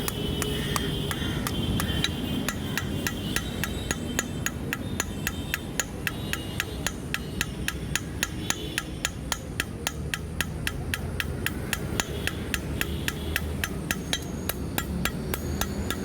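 Blacksmith's hammer striking steel on an anvil in quick, even blows, about four or five a second, over a steady low rumble.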